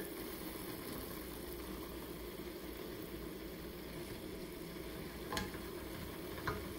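Purple cabbage sautéing in a stainless steel skillet, a steady low sizzle, with two light knocks of a wooden spatula against the pan near the end.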